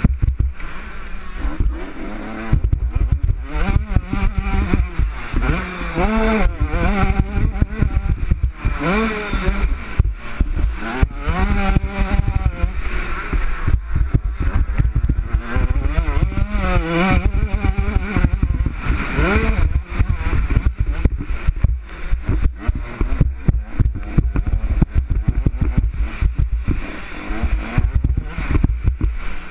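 Motocross bike engine at racing speed, revs climbing and falling again and again as the rider accelerates out of corners and shifts through the gears. A heavy low rumble of wind buffets the helmet-mounted camera's microphone throughout.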